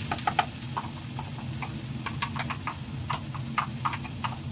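Chopped spice paste frying in hot oil in a nonstick pan, with scattered small pops and crackles of spitting oil and a few wooden-spatula stirring taps near the start, over a steady low hum.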